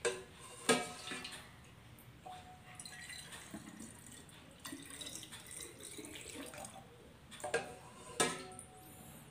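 Water being scooped from a pot with a small cup and poured through a plastic funnel into a bottle, the cup knocking against the pot near the start and again near the end.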